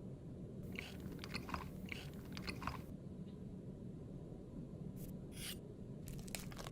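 Crunchy chewing and biting: a run of crisp crunches lasting about two seconds, then a few short crunches near the end.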